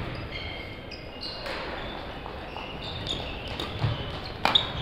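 Badminton rally: sharp hits of rackets on the shuttlecock, the loudest about four and a half seconds in, with short high squeaks of court shoes on the hall floor. Faint voices from around the hall underneath.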